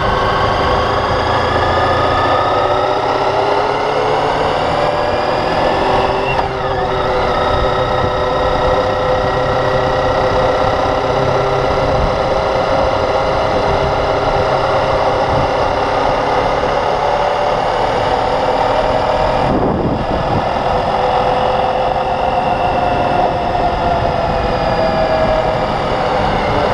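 Motorcycle engine running while riding, its pitch slowly rising and falling with road speed.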